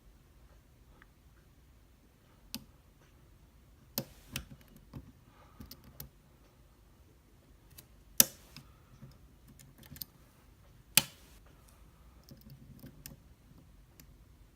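Lock picks and a tension tool working in an Abus D6 dimple euro cylinder: scattered sharp metallic clicks and taps at irregular intervals, two of them much louder, a few seconds apart.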